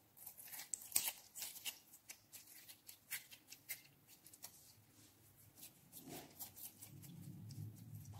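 Clear yellow glitter slime squeezed and kneaded by hand, giving quick sticky clicks and crackles, thickest in the first few seconds. A faint low rumble comes in near the end.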